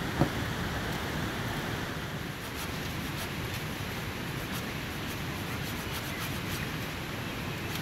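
Steady rush of flowing river water. A single short knock sounds just after the start.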